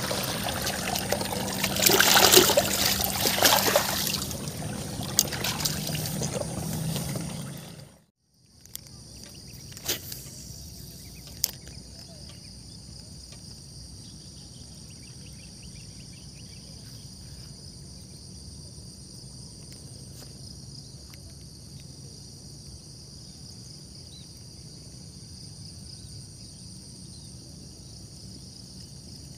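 Water pouring and trickling through a narrow ditch. After a cut about eight seconds in, a steady chorus of insects chirring in two high bands over quiet rural background, with two sharp clicks shortly after.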